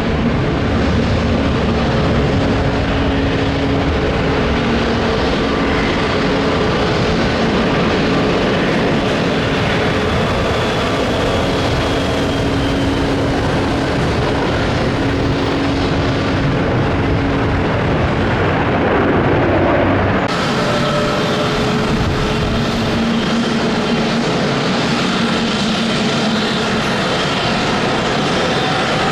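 Jet airliner engines at take-off power: a loud, continuous rumble with steady whining tones from a Boeing 757-300. About twenty seconds in, the sound cuts abruptly to another jet, a Boeing 737 business jet, with different engine whines.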